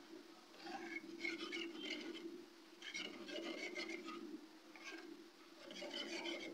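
Spatula stirring and scraping across the bottom of a pan of coconut-milk curry, in three short bouts, over a steady low hum.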